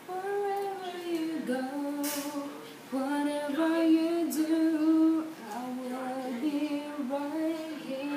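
A woman singing a slow melody unaccompanied, holding notes with short breaks between phrases. Two brief clicks sound behind the voice, about two and four seconds in.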